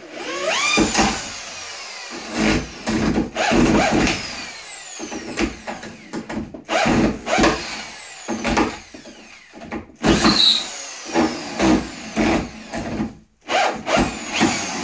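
Makita corded high-speed drill driving a 3-inch Phillips wood screw into a stud in several bursts with short pauses, the motor whining up as the trigger is pulled. The bit chatters and slips in the screw head: a standard Phillips screw camming out under a fast drill.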